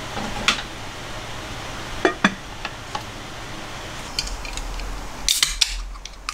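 Sharp knocks and clatter of a plastic rice paddle and a wooden lid on an aluminium rice pot. Near the end, a drink can's pull tab is opened with a short hiss and click.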